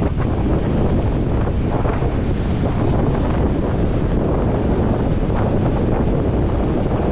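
Strong wind buffeting the microphone in a steady, gusty rumble, with ocean surf breaking beneath it.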